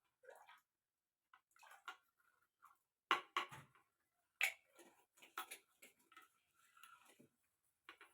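Scattered light clinks and knocks of kitchenware as vinegar is mixed into warm water. The sharpest knocks come about three seconds in and again around four and a half seconds in.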